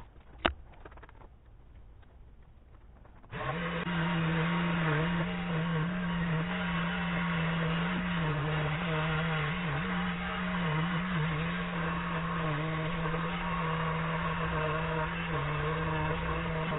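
A sharp click, then about three seconds in a handheld electric power tool starts and runs steadily with a slightly wavering hum, trimming the excess fibreglass cloth on a plywood battery box.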